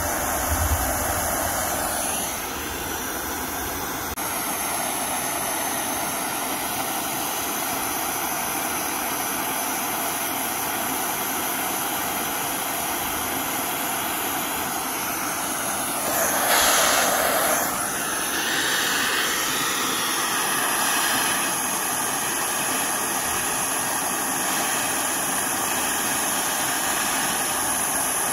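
Propane torch flame burning with a steady hiss. About sixteen seconds in the hiss swells louder for a couple of seconds.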